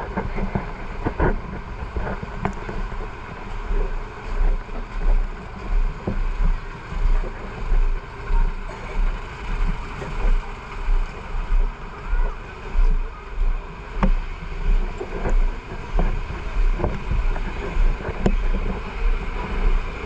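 Wind noise and low thumps on a body-worn camera's microphone, pulsing about one and a half times a second in step with the wearer walking.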